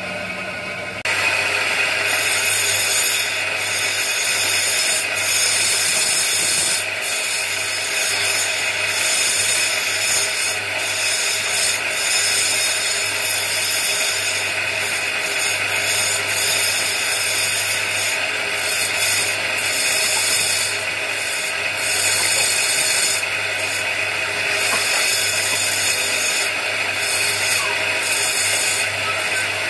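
Bench grinder running with a rough bacan gemstone held against its spinning wheel to shape it: a steady motor hum under a continuous grinding rasp that starts about a second in.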